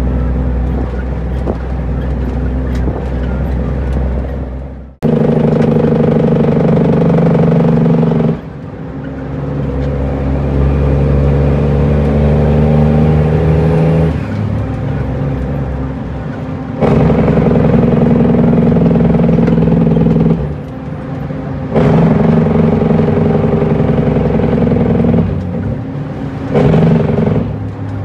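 Cummins N14 diesel of an International truck running under load, heard from inside the cab. It breaks off sharply and resumes about five seconds in, then its note and loudness change in steps several times.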